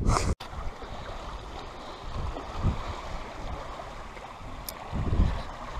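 Water rushing and churning out through the slots in a harbour wall beneath a pier, fed from a small weir: a steady rush, with a couple of low thumps near the middle and the end.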